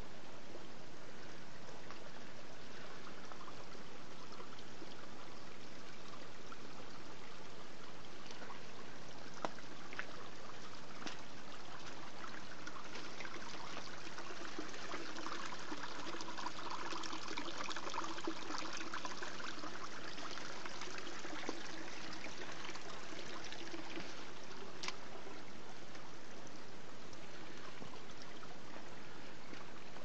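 Small mountain stream trickling and splashing down a rocky gully, louder through the middle stretch. A few sharp ticks sound over it.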